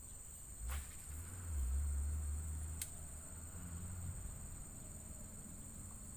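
Steady high-pitched insect chorus. There is a sharp click about half a second in and another about three seconds in, with a low rumble between them.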